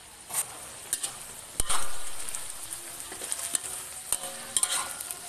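Melinjo leaves sizzling in hot oil in a steel wok while a metal spatula stirs them, scraping and clanking against the wok several times. The loudest clank comes about a second and a half in and rings briefly.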